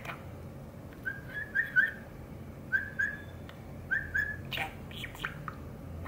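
Pet budgerigar whistling short, clear notes in little groups of two to four, then a few brief scratchy chattering sounds near the end.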